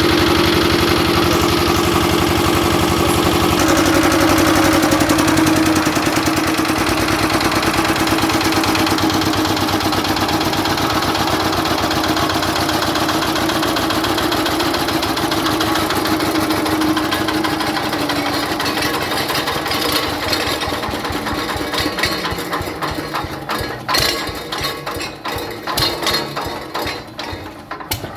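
7.5 kVA Kirloskar generator's engine running steadily with a constant hum. In the last several seconds it turns uneven, with separate knocks and dips in level.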